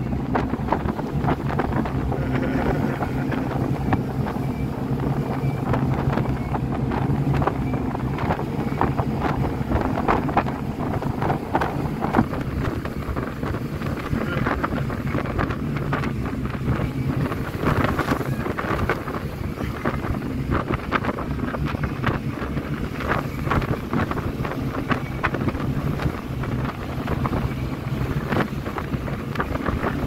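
RIB speedboat's engine running steadily at speed under heavy wind buffeting on the microphone, with frequent short gusts and knocks throughout.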